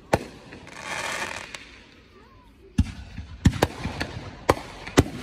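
Fireworks going off: a sharp bang just after the start, then after a lull a rapid string of about five bangs from about three seconds in.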